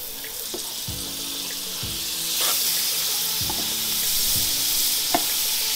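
Butter sizzling as it melts on the hot cast-iron griddle plate of a Weber Q1200 gas grill. The sizzle builds steadily louder, with a few faint clicks.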